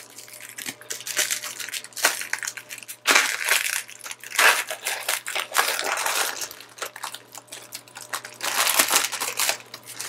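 Clear plastic wrap around a metal rack rail crinkling and crackling as hands pull and tear at it, in irregular bursts.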